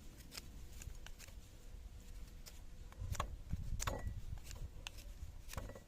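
Scattered light clicks and short scrapes from handling and working a builder's knife, over a low rumble, busiest about halfway through.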